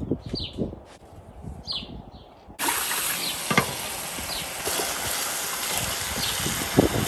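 Small birds chirping, a short falling chirp repeated a few times; then, about two and a half seconds in, a kitchen faucet comes on and water runs steadily over ridge gourds (luffa) being rinsed by hand in a bowl.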